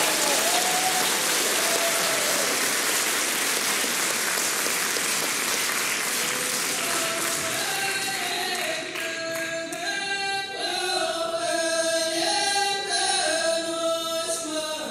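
Concert audience applauding, fading away over the first half, as several unaccompanied folk voices begin singing together in harmony about halfway through.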